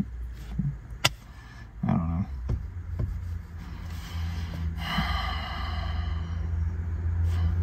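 Steady low hum inside a car cabin. About five seconds in comes a long, slow breath out, a sigh, lasting nearly three seconds.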